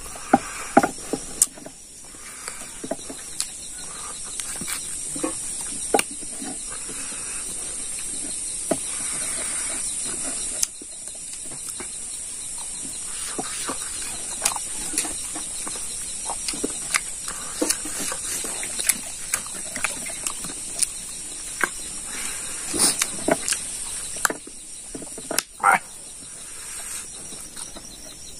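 A man eating pig trotter by hand: wet chewing and lip-smacking with frequent short clicks and smacks, over a steady high hiss.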